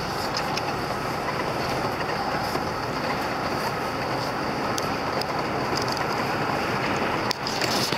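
Steady road and engine noise inside a moving vehicle's cabin, with scattered small clicks and rattles.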